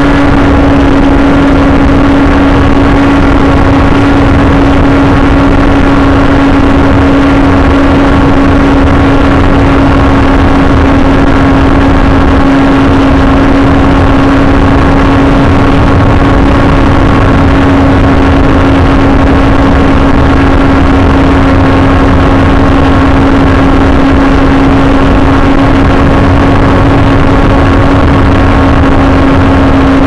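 AXN Floater Jet RC plane's electric motor and propeller running steadily in flight, a constant-pitch drone heard through the onboard camera, over loud wind rush across the airframe.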